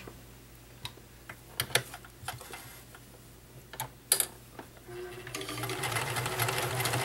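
A few scattered clicks and knocks while the stitch setting is changed, then about five seconds in the all-metal, fully mechanical Nelco convertible free-arm sewing machine starts stitching, a steady run of rapid ticks over a motor hum that grows louder as it speeds up.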